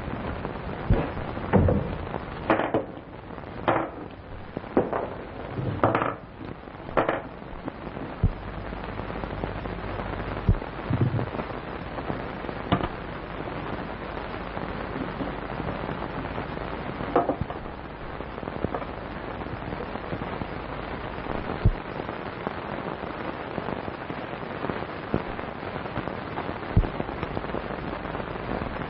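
Hiss and crackle of an early-1930s film soundtrack, with a string of sharp knocks and clicks in the first seven seconds and only a few single clicks after that.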